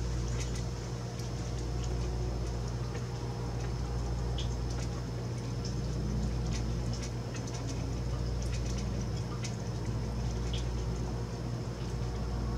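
A steady low hum, with faint irregular clicks and ticks scattered throughout, from raccoons pawing at a hanging metal tube bird feeder.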